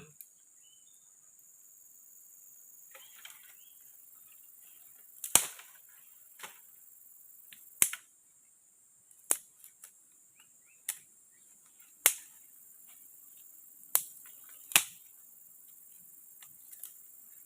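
About eight sharp, single knocks, irregularly spaced a second or two apart, of a tool striking wood.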